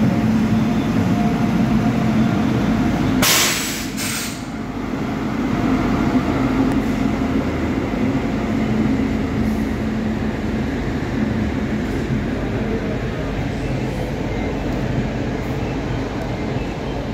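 Indian Railways electric locomotive and passenger coaches running past a station platform: a steady rumble of wheels on the rails with a low hum. Two short bursts of hiss come about three to four seconds in.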